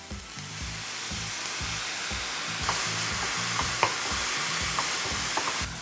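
Bean sprouts sizzling in a hot nonstick skillet as they are sautéed and stirred with a wooden spoon. The sizzle grows brighter about two and a half seconds in, with a few light clicks of the spoon against the pan, and cuts off abruptly just before the end.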